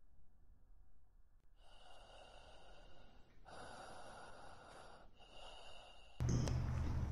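A person breathing close to the microphone, three long breaths with short gaps between them. About six seconds in, a sudden louder rumble of the camera being grabbed and handled.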